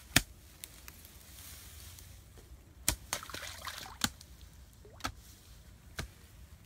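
Sharp clicks and knocks from metal cookware being handled, an aluminium wok and its lids, about once a second; the first, near the start, is the loudest. A soft hiss like trickling water comes in around three seconds in.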